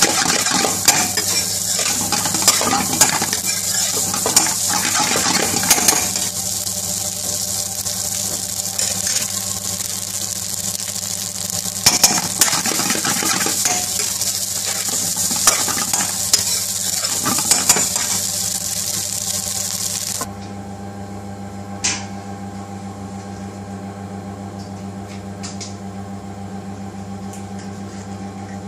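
Rice and chicken tikka pieces sizzling in a black pan on a gas burner while a spatula stirs and tosses them, with frequent sharp clicks and scrapes of the spatula against the pan. The sizzling and stirring cut off suddenly about two-thirds of the way through, leaving a steady low hum.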